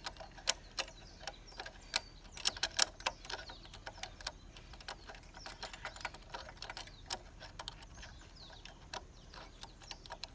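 Steel Allen key clicking and clinking in the bolt head of a front axle slider as it is turned and re-seated to tighten the bolt. A quick run of sharp clicks over the first three seconds or so, then scattered ones.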